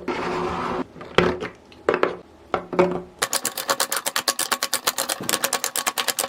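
Small hard objects being handled: a brief rustle, a few separate knocks, then from about halfway a fast, even run of sharp clicks.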